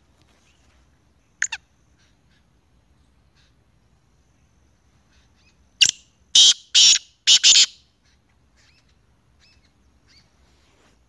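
Black francolin calling: a short falling note, then a sharp note followed by a phrase of four loud, harsh notes in quick succession.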